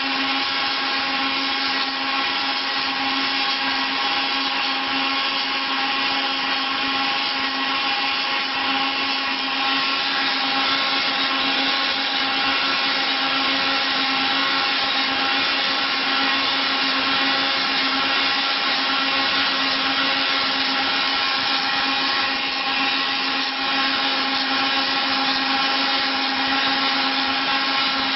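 Wood copy milling machine running: its motors give a steady whine over a dense hiss.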